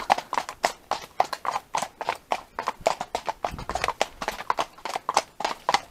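Horse's hooves at a walk: a steady, even clip-clop of about three to four hoofbeats a second.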